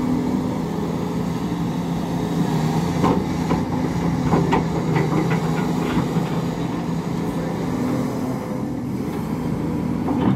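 SDLG hydraulic excavator's diesel engine running steadily under load while it swings and works its bucket. About three seconds in comes a run of short knocks and clatters lasting a couple of seconds.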